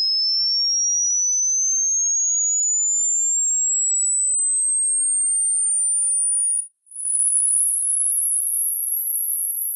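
Pure sine test tone of an ear-age hearing test: a single high whistle gliding slowly and steadily upward in pitch. About two-thirds of the way through it cuts out for a moment and comes back higher, rougher and wavering, still climbing slightly.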